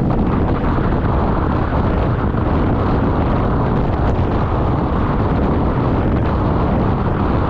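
Wind buffeting the microphone of a handlebar-mounted camera on a road bike riding at about 37 km/h: a loud, steady rush of noise, strongest at the low end.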